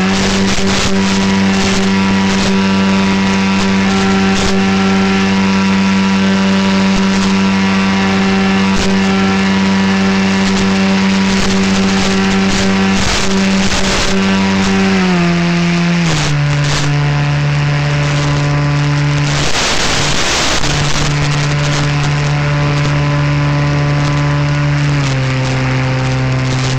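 RC paramotor's motor and propeller running with a steady whine full of overtones, stepping down to a lower speed about halfway through and again near the end. A brief rush of noise about three quarters of the way through.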